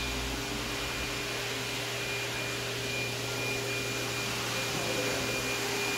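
Steady indoor background hum and hiss with a faint steady whine, unchanging throughout: the room tone of a large store.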